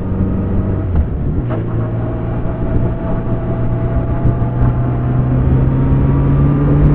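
Kawasaki Z900RS inline-four engine running under way. After a brief change about a second in, its pitch rises slowly as the bike accelerates.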